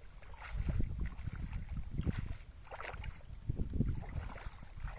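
Shallow water sloshing and dripping in short splashes as a wet cast net is gathered up and lifted. Wind rumbles on the microphone underneath.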